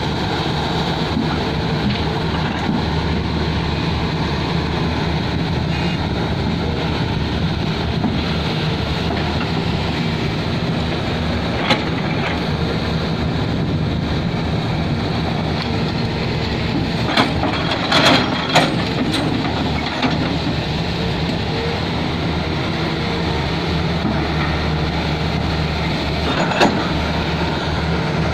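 Excavator's diesel engine running steadily, with a few sharp knocks over it: one about twelve seconds in, a cluster of them around two-thirds of the way through, and one more near the end.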